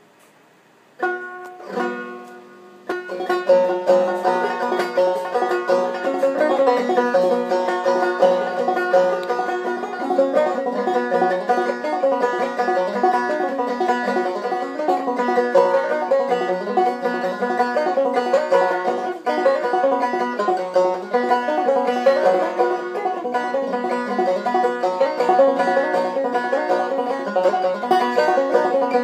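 Banjo played clawhammer style: two ringing chords about a second in, then a steady, rhythmic tune from about three seconds in.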